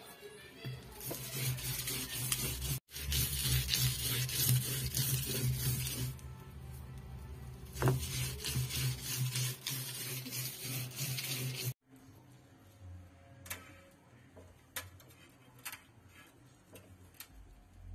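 A stone roller grinding chilli and coconut chutney on a flat ammikkallu grinding stone, stone scraping over wet gritty paste. It is loud and gritty for most of the time, over a steady low hum, then cuts off abruptly and gives way to quieter scrapes and a few sharp clicks.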